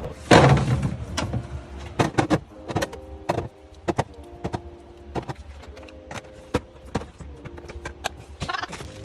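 Food packages and containers being handled and set down: a string of sharp clicks and knocks, with a louder scraping rustle just after the start, over faint background music.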